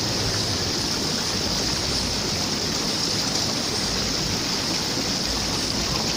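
Running water, a steady rushing hiss that stays even throughout.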